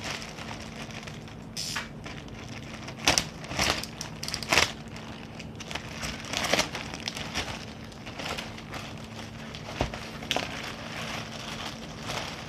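Plastic-wrapped courier parcel being handled and opened, its wrapping crinkling in irregular bursts, loudest from about three to five seconds in, over a faint steady hum.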